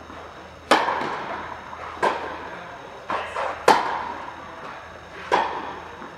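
Tennis balls struck by rackets in a rally, opening with a serve: four sharp pops about a second and a half apart, each echoing in the large indoor hall, with fainter knocks between two of them.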